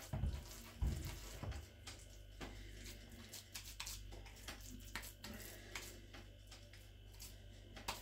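Wet hands kneading and shaping raw minced-meat mixture in a plastic bowl: soft squishing and patting, with a few low thumps in the first second and a half.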